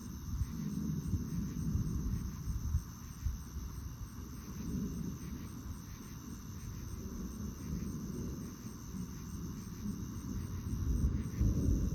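Steady high-pitched chirring of insects such as crickets, over a low, uneven rumbling noise.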